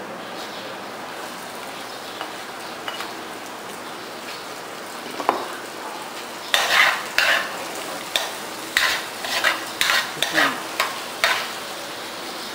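Chopped red onion and garlic sizzling steadily in hot oil in an aluminium wok. In the second half a metal spatula scrapes and stirs against the wok about ten times in quick strokes, louder than the sizzle.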